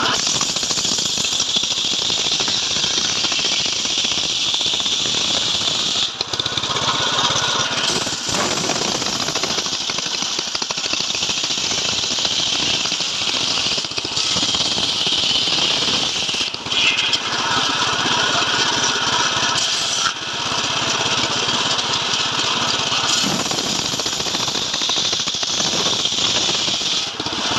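Homemade bench circular saw running and ripping teak logs into boards. The blade cuts with a loud, steady noise, broken by a few brief dips.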